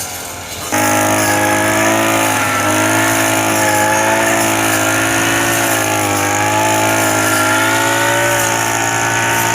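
A heavy machine's engine running steadily, starting abruptly about a second in; its pitch wavers slightly as it works.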